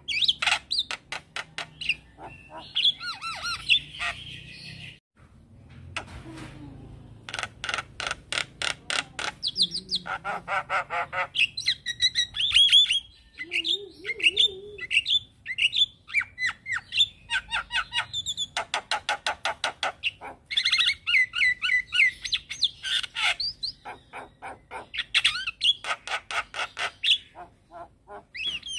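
Javan myna singing energetically: long runs of rapid clicks and rattles alternating with short slurred whistles, with a brief pause about five seconds in.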